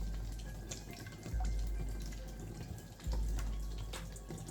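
Water splashing and dripping as potatoes are scrubbed clean by hand in a pot of water. A deep low tone sets in three times and fades under it.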